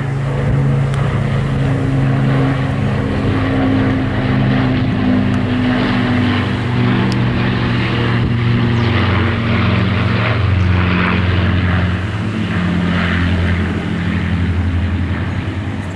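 Low-flying Avro Lancaster bomber with an escorting Spitfire and Hurricane passing overhead, their piston engines, the Lancaster's four Rolls-Royce Merlin V12s among them, making a steady throbbing drone. The drone eases slightly in the last few seconds.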